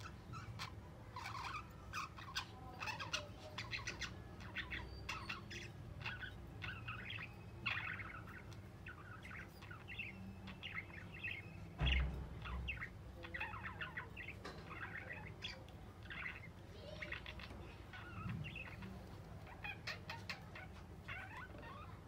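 Budgerigars chirping in a continuous stream of short, quick calls, with a single dull thump about halfway through.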